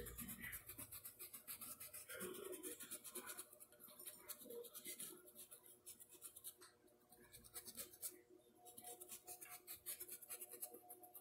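Faint, rapid scratchy strokes of a paintbrush working paint, coming in runs with short pauses between them.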